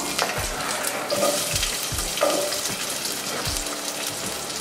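Chopped onion and garlic frying in hot oil in a stainless steel pot: a steady sizzling hiss as the onion pieces go in.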